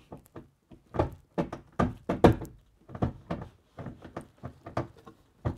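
Clip-on concealed cabinet hinge and wooden door knocking and clicking against the hinge's mounting plate as the door is pushed and jiggled to clip it on: a rapid, irregular run of sharp knocks, the loudest about two seconds in. The hinge is not catching on the plate.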